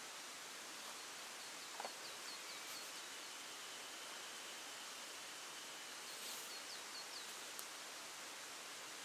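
Quiet outdoor ambience with a steady hiss, over which a bird sings two short phrases of quick, high repeated chirps, about four or five notes each, one near the start and one about two-thirds of the way through. A small click comes about two seconds in.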